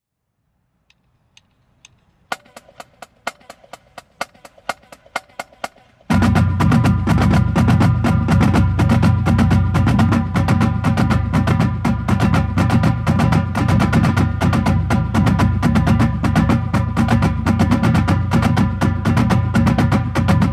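High school drumline (snare drums, tenor drums and pitched bass drums) playing a sixteenth-note timing exercise. A few sharp clicks are followed by quieter rapid taps, and about six seconds in the full line comes in loud with steady, even strokes.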